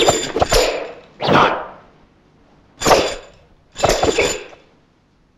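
Nunchaku swishing through the air in a film fight. First comes a fast flurry of swishes and sharp clacks, then three separate whooshing swings over the next few seconds.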